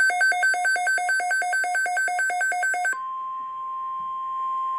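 Weather radio alert: rapid electronic beeping, about five beeps a second, that switches abruptly about three seconds in to a single steady tone, the NOAA Weather Radio warning alarm tone that comes before the spoken watch message.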